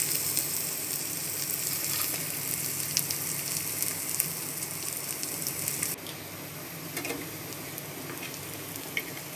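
Sliced onion, garlic and green and red chilies sizzling steadily in hot mustard oil in a frying pan, with a few clicks of a spatula stirring them. The sizzle gets quieter about six seconds in.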